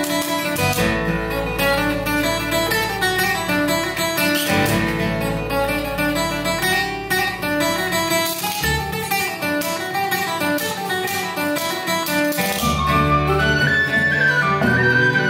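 A folk band playing an instrumental tune live. Plucked string instruments carry the melody over strummed guitar, and an electric bass comes in about three-quarters of the way through, with a wind instrument joining near the end.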